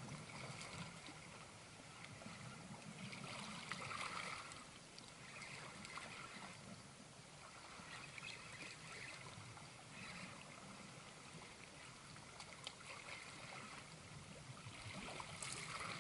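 Faint sea water lapping and gurgling, coming and going in uneven surges.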